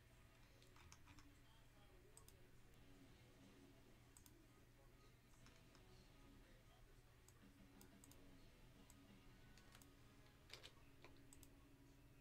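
Near silence over a faint low hum, with scattered faint clicks of a computer keyboard and mouse. One click cluster about ten and a half seconds in is slightly louder.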